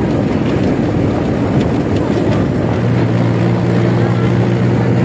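Vehicle engine running and road noise, heard from inside the cab while driving. About three seconds in, a steady engine hum comes through more clearly.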